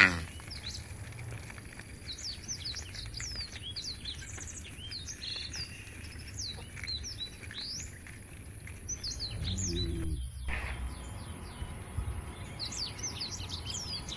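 Many small birds chirping and calling in quick, short notes over a steady low rumble, with a brief low sound about ten seconds in.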